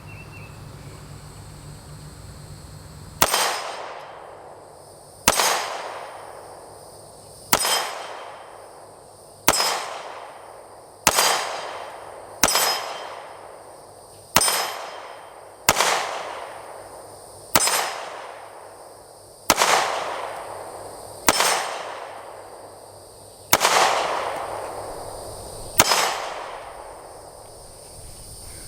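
Canik TP9 Elite SC 9mm pistol fired in slow, deliberate shots, about thirteen of them roughly two seconds apart, each with a ringing clang from the steel gong target as it is hit.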